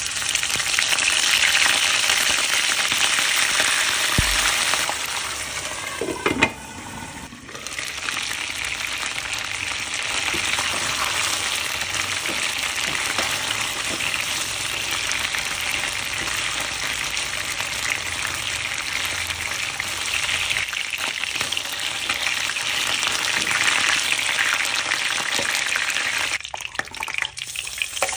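Chicken pieces sizzling as they fry in hot oil in a pan, turned with a spatula. The steady sizzle drops briefly about seven seconds in and again near the end.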